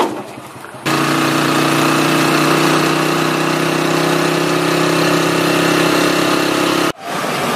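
Motorcycle engine of a sidecar tricycle running at a steady pace, heard from inside the sidecar. It comes in abruptly about a second in and cuts off suddenly near the end.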